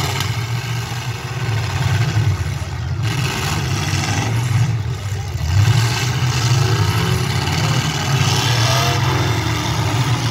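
Demolition derby cars' engines running together in a loud, steady rumble, with revs rising and falling in the second half.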